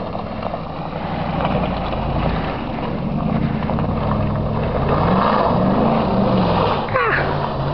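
Cadillac Escalade's V8 engine revving under load off road, the pitch climbing and falling as the throttle is worked about five seconds in. A short falling squeal comes near the end.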